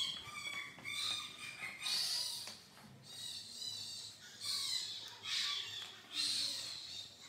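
Newborn baby crying: a string of short, high-pitched wails about a second long each, with brief pauses between them.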